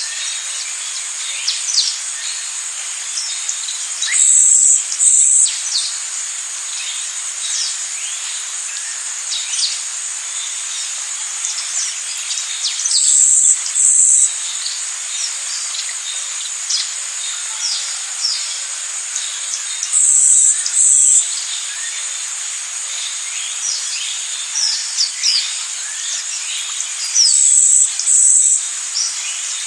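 Rainforest ambience: a steady high-pitched insect drone, with a louder double buzz about every seven seconds and many short, quick downward-sweeping bird chirps scattered throughout.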